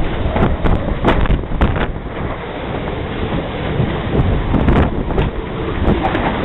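Strong windstorm gusts buffeting the microphone in a loud, continuous rush, with scattered sharp knocks through it.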